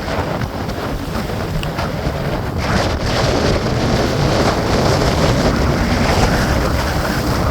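Wind rushing over the microphone with water noise from a boat under way, growing louder about three seconds in.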